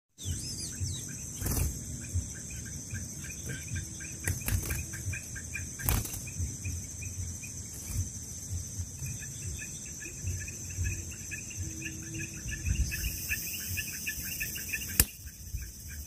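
Albino sooty-headed bulbul fluttering its wings on a hand-held perching stick, with a few sharp knocks, the loudest near the end. Behind it runs a steady high insect drone and a fast, regular insect chirping.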